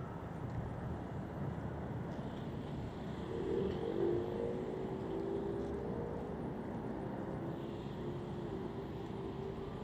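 Road traffic on a busy city street: a steady rush of passing cars, with one vehicle's engine hum standing out from about three seconds in until near the end.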